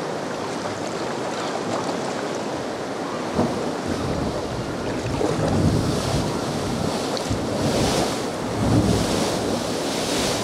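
Sea swell surging and breaking against the foot of a cliff, a steady rushing wash of water that swells in several surges, with wind buffeting the microphone.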